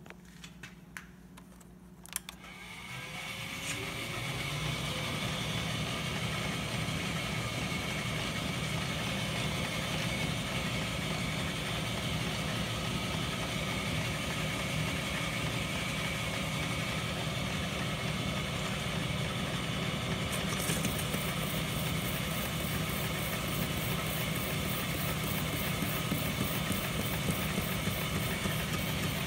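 1956 Clausing metal lathe being started: a few clicks from its controls, then the motor and spindle spin up over about two seconds and run steadily. About two-thirds of the way in, a higher hiss joins as the cutting tool takes a light truing pass on a PVC pipe assembly.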